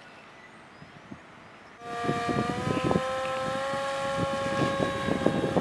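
A 2300 kV brushless motor spinning the propeller of a foam RC plane starts up about two seconds in. Its pitch steps up briefly, then it holds a steady whine at launch throttle. Gusts of wind buffet the microphone underneath.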